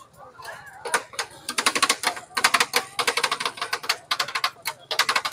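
Rapid clacking: many sharp clicks a second in uneven bursts.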